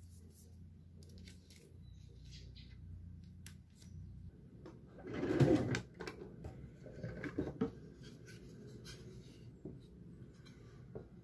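Quiet room tone with small handling noises: a short rustle about halfway through, the loudest sound, followed by a few light clicks and knocks as objects are handled.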